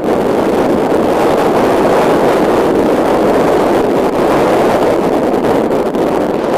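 Wind buffeting the camera microphone: a loud, steady rush.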